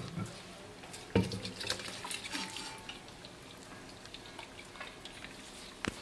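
Water dripping and splashing off a raw beef tongue as it is lifted out of a pot of water, with a sharp knock about a second in, small clicks and wet sounds after it, and one more click near the end.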